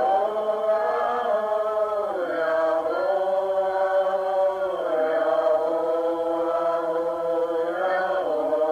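Voices chanting in long held notes, the pitch sliding to a new note every couple of seconds, as in a recorded meditation chant.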